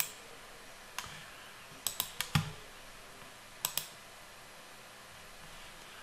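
About eight sharp clicks of a computer mouse and keyboard, scattered and some in quick pairs, over faint room hiss.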